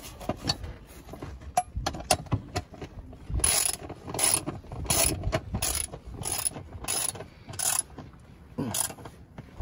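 A ratchet with a 10 mm socket clicking as it tightens down the bolts that clamp a seat-harness strap. A few scattered clicks come first, then about two ratcheting strokes a second from a few seconds in.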